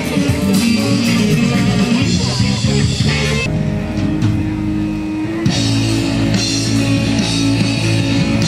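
Band music led by guitar over a bass line, playing continuously.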